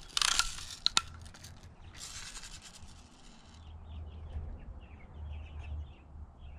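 A Daisy Buck 105 lever-action BB gun being handled and cocked: a rasping scrape with two sharp clicks about a second in, then another scrape from about two seconds in. Birds chirp faintly through the second half.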